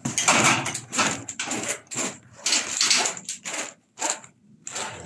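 Irregular rustling and scraping in quick short bursts, with a brief pause about four seconds in: corrugated flexible electrical conduit being pushed and rubbed through a hole drilled in a steel purlin.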